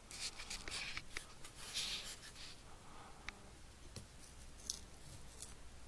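Faint rustling and small clicks of old cloth-sheathed house wiring being handled and pulled apart at a ceiling box.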